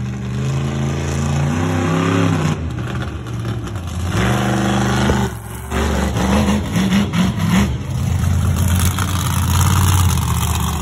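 Monster truck engine revving over and over, its pitch climbing and falling, with a brief drop about five seconds in and quick blips of the throttle after it.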